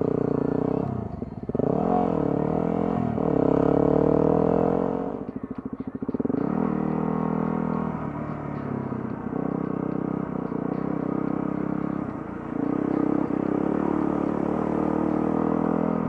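Yamaha WR250R's single-cylinder four-stroke engine pulling away and riding on, its revs rising and falling through gear changes, with short lifts of the throttle about a second in and again around five to six seconds.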